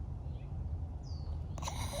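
Sleeping Staffordshire bull terrier breathing noisily, a snore building near the end.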